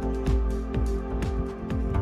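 Background music with a steady beat, about two beats a second, over sustained tones.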